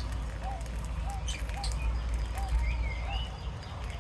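Pet birds chirping: short, arched chirps repeat about twice a second, a longer swooping call rises once near the end, and sharp little clicks come in between, over a low rumble.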